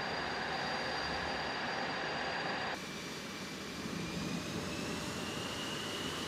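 F/A-18 Super Hornet's jet engines running with a steady high whine. About three seconds in the sound changes abruptly, and the whine then rises slowly in pitch as the engines spool up on the catapult before launch.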